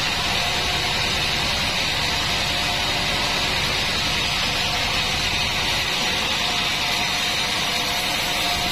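Band sawmill running steadily: a low machine drone with a steady hum under an even hiss.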